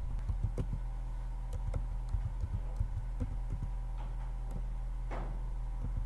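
Computer keyboard keys clicking at irregular intervals during typing, over a steady low electrical hum.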